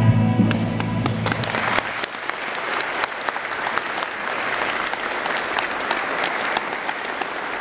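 Audience applause: a dense, steady clatter of many hands clapping. The clapping starts within the first second, while the closing music is still playing, and the music fades out under it by about two seconds in.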